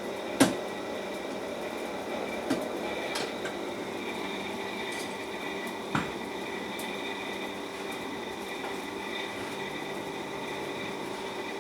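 Steady hum of a workshop machine running, with a few isolated sharp metal knocks, about half a second, two and a half seconds and six seconds in.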